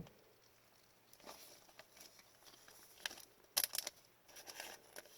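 Hockey trading cards being handled: faint rustling with a few short, sharp clicks, the loudest a little past halfway.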